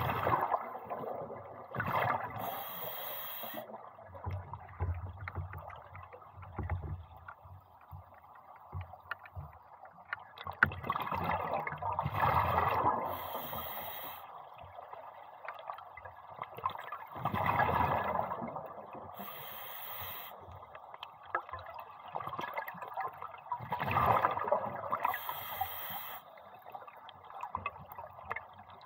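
Scuba diver breathing underwater through a regulator: four breaths, each a loud rush and gurgle of exhaled bubbles followed by a short high hiss, about every five to seven seconds.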